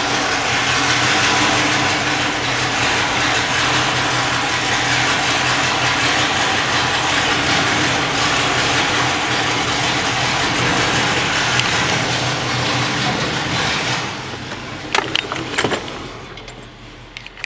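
Lifted pickup truck's engine running loudly and steadily in a concrete parking garage. The sound drops off about fourteen seconds in, followed by a few sharp clicks and knocks.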